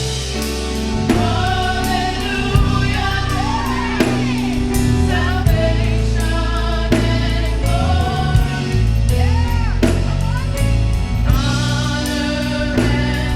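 Worship song performed live: voices singing a held, gliding melody over a band, with steady low bass notes and a drum beat.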